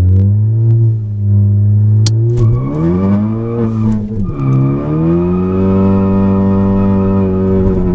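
Tuned 2016 Ford Focus ST's turbocharged 2.0-litre EcoBoost four-cylinder, with a catless downpipe and Roush cat-back exhaust, heard from inside the cabin under hard acceleration. The revs climb, drop sharply at an upshift about four seconds in, then climb again.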